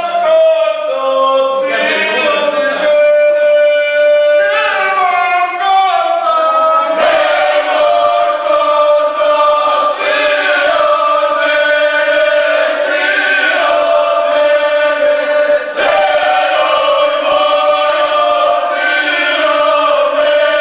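Unaccompanied group folk singing by men's and women's voices in parts, with long held notes.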